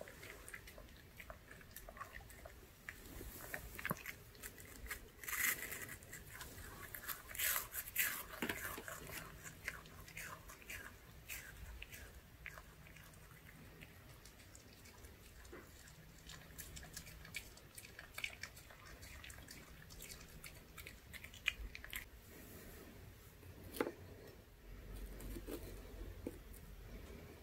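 Pomeranian chewing and licking its lips, making small wet smacking and clicking mouth sounds as its tongue works dry pancake crumbs out of its mouth. The sounds come thickest in the first half and thin out later, with a couple of sharper clicks near the end.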